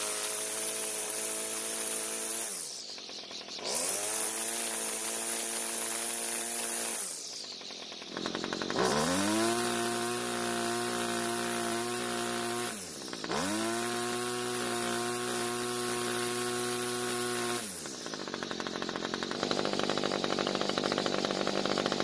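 Homelite string trimmer's two-stroke engine revving to wide-open throttle four times, dropping back briefly between, then settling to a steady idle near the end. It runs strong and clean, with the sound of an old-school two-stroke that the owner suspects may have been ported.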